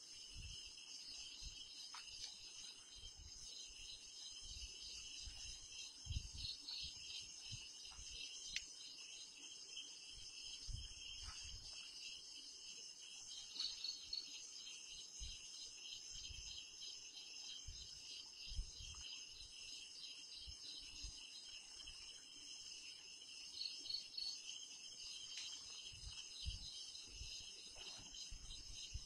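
Night insects chirring in a steady, continuous chorus at several high pitches, with occasional low bumps underneath.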